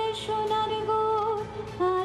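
A woman singing a slow melody into a microphone, holding long notes that waver slightly. She breaks off briefly near the end and starts a new phrase.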